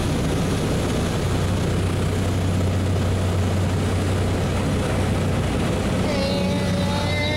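Propeller aircraft engine running at a steady drone, heard from inside the plane's cabin as it rolls along the runway. A voice joins faintly near the end.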